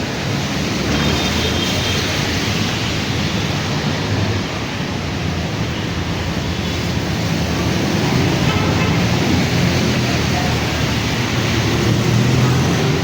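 Heavy rain falling steadily, with traffic rumbling underneath.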